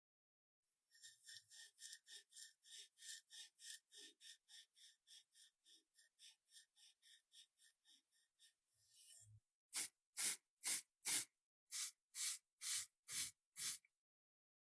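Welding arc crackling in short, evenly spaced bursts, about three a second, then after a brief rush about nine louder bursts roughly two a second.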